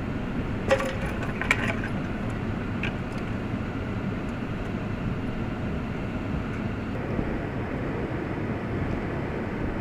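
Strong storm wind blowing across the microphone as a steady low rumbling rush, with three sharp knocks in the first three seconds.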